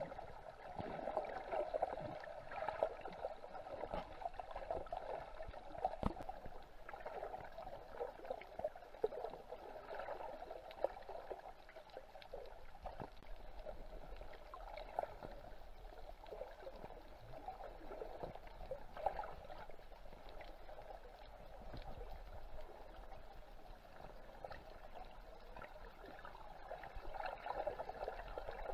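Muffled underwater water noise picked up by a camera while snorkelling over a reef: a steady dull wash with scattered small clicks and crackles throughout.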